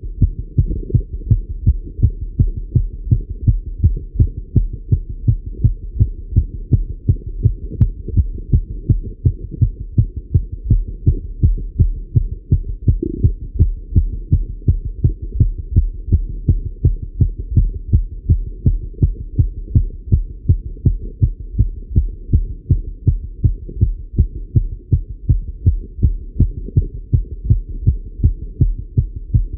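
A man's heart beating fast and evenly, heard through a Littmann stethoscope on the chest; the rate is raised by cycling exercise.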